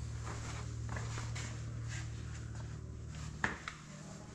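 Soft footsteps in a quiet room over a low steady hum that fades about three seconds in, with two sharp clicks a little after that.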